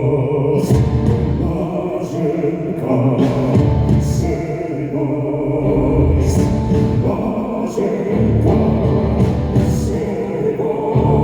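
Loud live concert music: a rock-styled band arrangement with heavy bass pulses every couple of seconds and cymbal crashes, with male voices singing in harmony.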